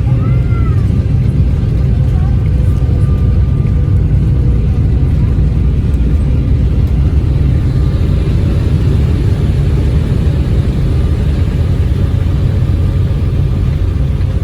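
Jet airliner cabin noise during landing: a steady, loud low rumble of the engines and rushing air, with the hiss growing somewhat stronger about halfway through.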